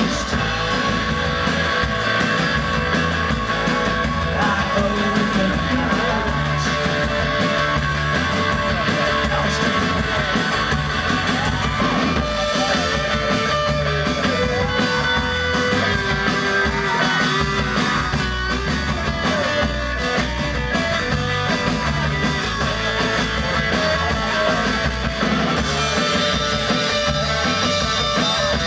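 A rock band playing a song live, with guitars and a drum kit with cymbals going steadily throughout.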